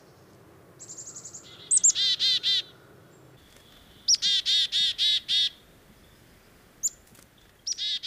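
Black-capped chickadee giving its chick-a-dee call, a high note followed by a run of four to six dee notes, three times, the third starting near the end. A quick run of thin high notes comes about a second in.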